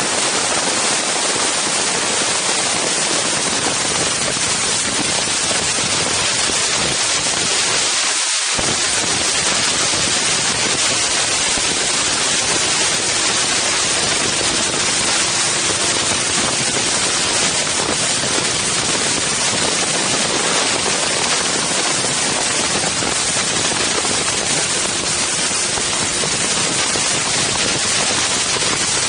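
Loud, steady wind noise rushing over an Insta360 One X camera's microphones.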